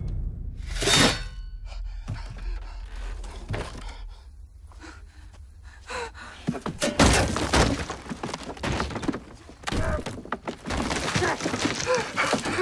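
A shovel digging into earth in repeated strokes, heard as dull thunks and scrapes that come thickest in the second half, over a low rumble. A man's strained gasps rise near the end.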